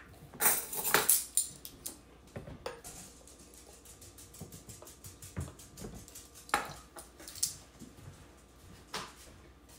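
Apple cider vinegar poured from its bottle into a metal tablespoon held over a glass measuring cup, with clinks of the spoon and glassware and a short loud clatter about half a second to a second in.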